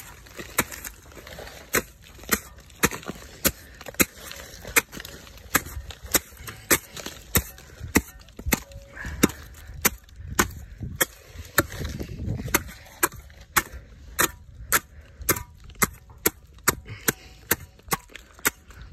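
Machete chopping repeatedly into the old leaf bases (boots) on a Canary Island date palm trunk: sharp, evenly spaced strikes at about two a second.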